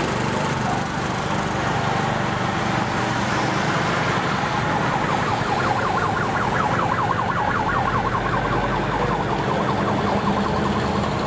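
A siren warbling fast for several seconds from about three seconds in, over the steady running of passing vehicle engines.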